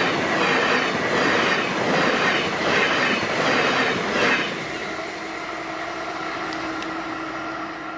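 ICE high-speed electric train passing close by at speed, its wheels clattering rhythmically over the track. About four seconds in it gives way to a quieter steady rail running sound with a low hum, as another ICE train approaches.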